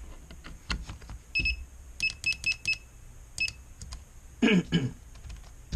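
A run of six short, high electronic beeps, the first a little longer than the rest, preceded by a few soft clicks.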